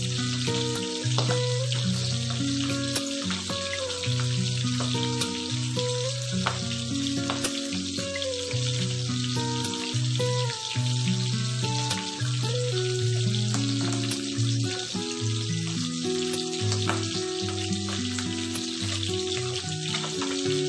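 Milkfish steaks sizzling in hot oil in a frying pan, a steady hiss with scattered small pops of spitting oil. Background music with a melodic bass line plays underneath and is the louder of the two.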